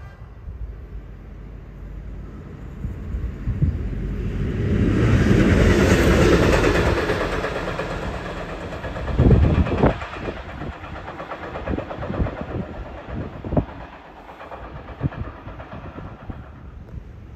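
A passing train: its running noise builds to a peak about six seconds in, then eases off. Loud knocks follow, then a string of lighter clacks, typical of wheels going over rail joints.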